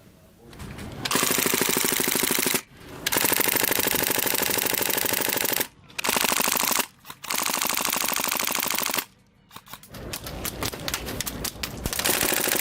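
Custom GHK gas blowback AUG airsoft gun in its HBAR light-machine-gun setup firing full auto, open bolt, at about 900 rounds per minute. It fires several long bursts of rapid shots, each one to two and a half seconds long, with brief pauses between them.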